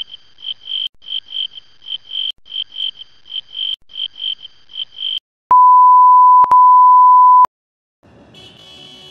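A high chirping tone pulsing about four to five times a second in short runs, then, after a moment of dead silence, a loud steady beep tone of a single pitch for about two seconds, broken once briefly, that cuts off suddenly.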